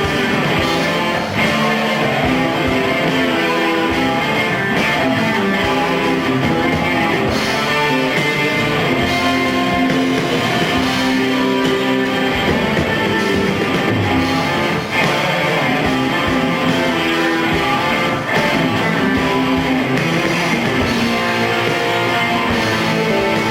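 A rock band playing live on a small club stage, with guitars to the fore in a loud, steady passage.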